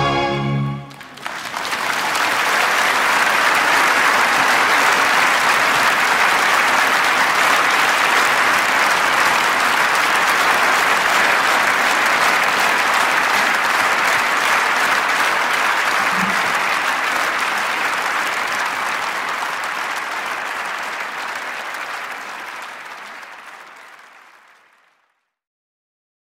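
Audience applause, a dense steady clapping that starts as the music stops about a second in and fades out near the end.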